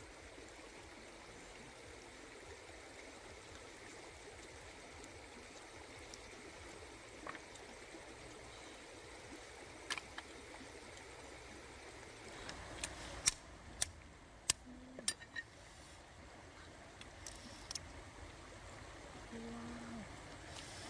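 Faint, steady rush of flowing water, with scattered sharp clicks and taps, several of them bunched together about two-thirds of the way through.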